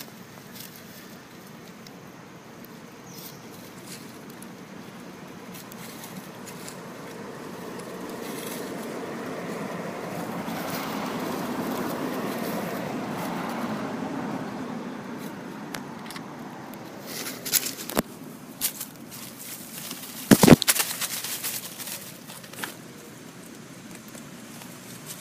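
A passing vehicle: a steady engine noise swells over several seconds and fades away again. Later come a run of sharp crackles and one loud knock about twenty seconds in.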